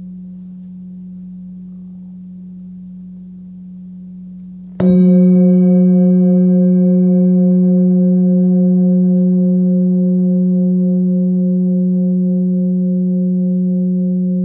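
A 19.7 cm Nepalese singing bowl tuned to about 181 Hz (F sharp) rings with a low, steady hum. About five seconds in it is struck again and rings out loud, its deep fundamental joined by a cluster of higher overtones that fade slowly.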